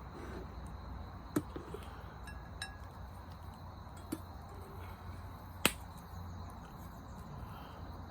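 Wood campfire crackling: a few sharp, isolated pops a second or more apart over a low steady rumble, the loudest about two-thirds of the way through.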